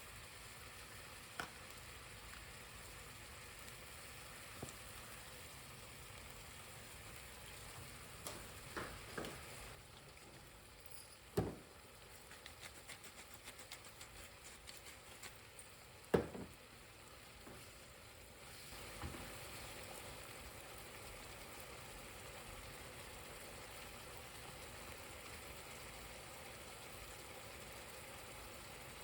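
Food frying quietly in a pan, a steady low sizzle, with a few sharp knocks of a utensil against the pan, the loudest about eleven and sixteen seconds in, and a run of light ticks between them.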